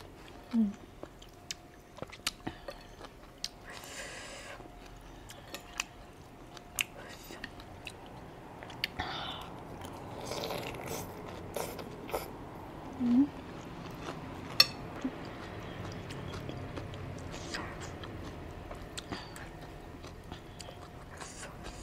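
Close-up eating sounds from a bowl of chicken noodle soup with bitter melon: chewing and biting with scattered small clicks. A short hum is heard twice, about half a second in and again around thirteen seconds.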